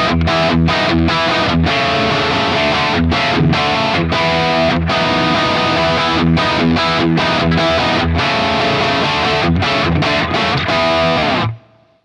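Electric guitar played through a Carl Martin Panama, a Marshall Plexi-style overdrive pedal, giving a crunchy distorted hard-rock riff of chords with frequent sharp stops. Near the end the playing stops, a last note rings briefly, and then it goes silent.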